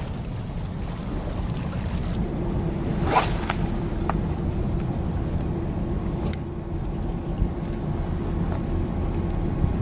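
Spinning fishing reel being wound as a lure is worked, a steady whir with a few light clicks over a low rumble of wind and harbour water. A sharp swish about three seconds in.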